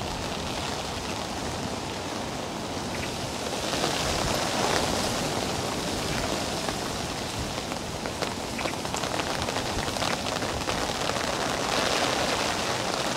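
Rain falling steadily, with scattered single drops ticking. The hiss swells a little about four seconds in and again near the end.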